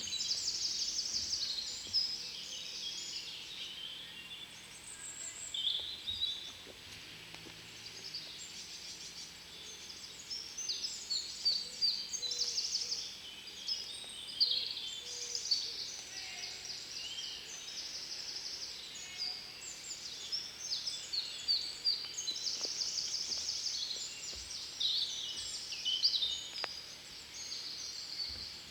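Several songbirds singing together in woodland, overlapping quick trills and repeated chirping phrases with hardly a break, over a faint background hiss.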